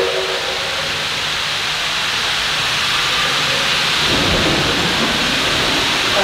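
Victorian Railways K-class steam locomotive starting away, its steam giving a loud, steady hiss. A whistle blast cuts off just after the start, and a low rumble swells about four seconds in.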